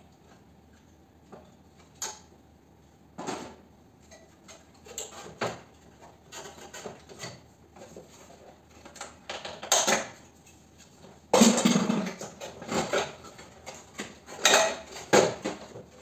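Plastic and metal parts of a split air conditioner's indoor unit clattering, knocking and scraping as the fan motor and cross-flow blower wheel are worked loose and pulled out by hand. Scattered single clicks at first, then busier rattling in the second half, loudest about three-quarters of the way through.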